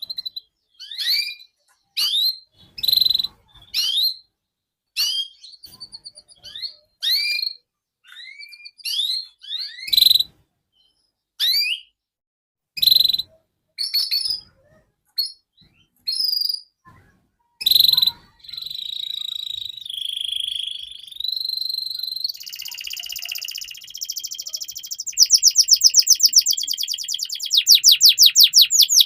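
Domestic canary singing. For the first half it gives separate sharp chirps, about one a second. It then runs into continuous whistled song that breaks into fast, loud rolling trills near the end.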